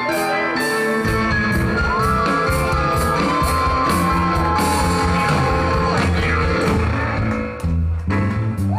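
Live rock band playing loud: electric guitars, accordion and a drum kit, with a voice singing and yelling held notes over them. The band cuts out for a moment near the end before coming back in.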